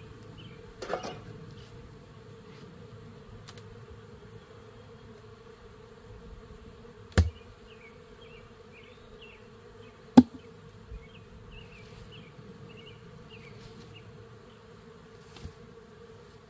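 Honeybees buzzing in a steady hum around an opened hive. Two sharp knocks stand out, about seven and ten seconds in, from the smoker being set down and the wooden inner cover being pried loose.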